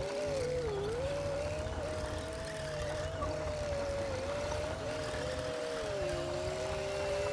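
Komatsu D60P bulldozer working: a steady engine rumble under several high-pitched squeals that waver and dip in pitch without a break.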